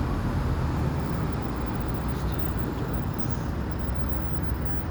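Road traffic: a steady low rumble of car engines and tyres on a city street.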